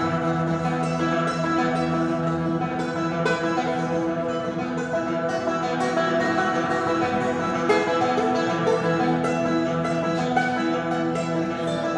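Live instrumental duet: a banjo picking notes over long bowed notes on a double bass.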